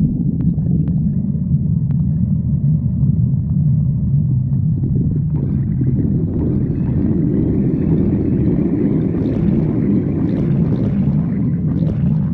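Stomach growling: a continuous low rumbling that grows fuller and rougher about five seconds in, then eases back just before the end.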